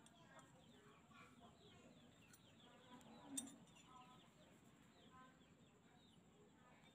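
Near silence, with chickens clucking faintly in the background and a single light click about three and a half seconds in.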